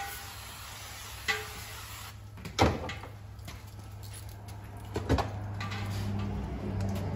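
A few sharp knocks and clacks, the loudest about two and a half seconds in, over a steady low hum.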